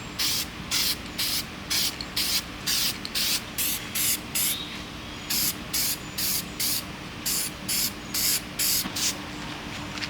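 Aerosol can of Seymour aluminum-finish spray paint sprayed in quick short bursts, about three a second, with a brief pause about five seconds in.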